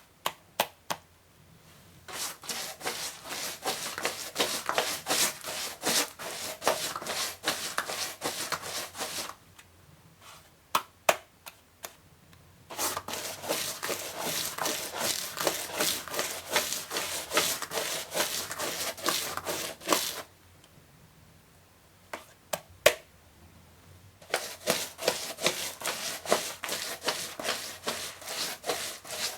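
Rapid rubbing strokes in three long runs, separated by pauses that hold a few single clicks and knocks.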